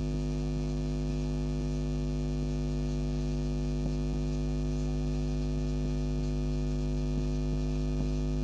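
Steady electrical mains hum with a stack of even tones, and a few faint ticks from a marker writing on a whiteboard.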